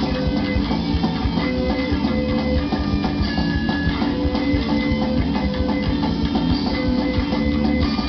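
Punk/hardcore band playing live, with electric guitars, bass and a drum kit.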